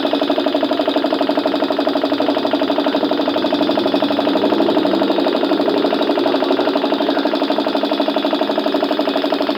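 A loud, steady machine drone with a fast, even pulse, like an engine running, that does not change throughout.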